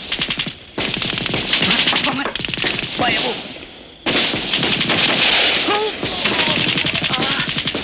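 Rapid automatic gunfire in long, dense bursts of shots, breaking off briefly just before a second in and again around four seconds in.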